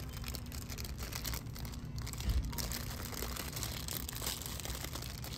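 Irregular crinkling and crackling of something being handled, over a low steady rumble.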